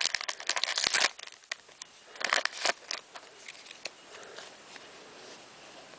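Foil Pokémon booster pack wrapper crinkling and tearing as it is worked open, with the wrapper not tearing easily. The crinkling is loudest in the first second, comes again in a burst about two seconds in, then fades to faint rustling and light ticks.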